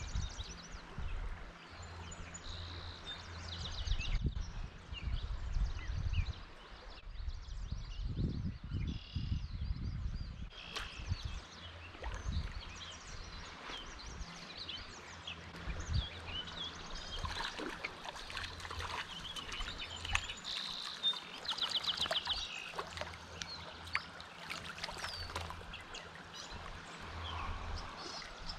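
Several songbirds singing and calling, with short chirps and trills, over the faint trickle of a shallow creek and low rumbling on the microphone.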